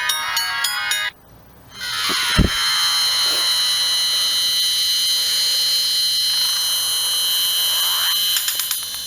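Siemens M65 mobile phone ringtones: a polyphonic electronic melody ends about a second in. After a short pause comes a noisy electronic sound-effect tone with steady high whistling tones, a quick falling sweep about two seconds in, a rising sweep near the end, and then a few clicks.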